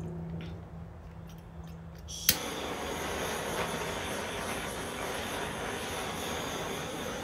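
Handheld gas torch lit with a sharp click about two seconds in, then a steady hiss of the flame as it is passed over the fresh epoxy coat on a turning gourd; the hiss cuts off abruptly near the end.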